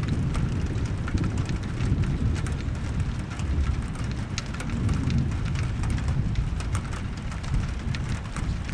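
Thunderstorm rain falling steadily, with many sharp close drop hits over a continuous low rumble.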